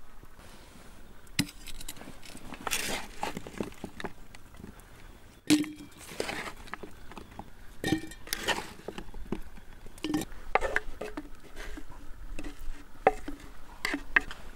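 Vegetables dropped and scraped from a wooden bowl into an aluminium milk can: an uneven series of knocks and clinks, some ringing briefly off the metal can.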